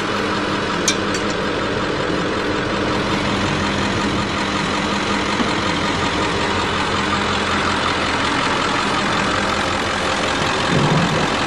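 A vehicle engine running steadily with a constant drone.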